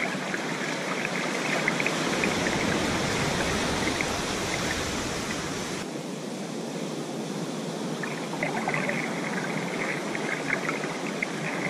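Ocean surf washing in over the sand in a steady rush, with scattered faint crackles.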